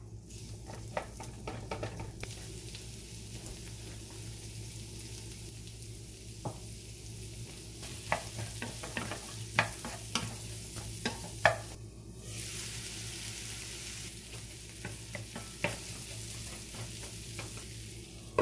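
Chicken of the woods mushroom strips and garlic sizzling as they fry in a frying pan. A utensil clicks and scrapes against the pan as they are stirred. The sizzle briefly drops out once, about twelve seconds in.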